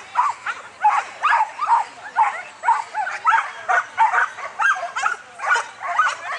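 Flyball dogs barking over and over, a fast string of sharp, excited barks at about two to three a second, some overlapping.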